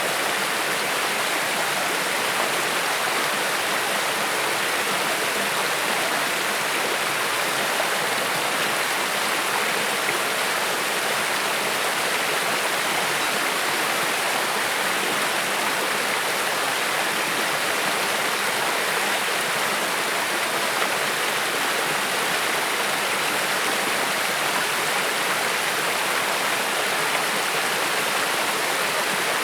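Creek water flowing and splashing over stones, a steady rushing sound that does not change.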